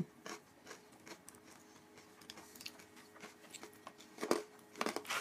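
Twice-baked cranberry and hazelnut toast being broken and bitten: faint crackles and clicks at first, then a few louder crunches about four seconds in.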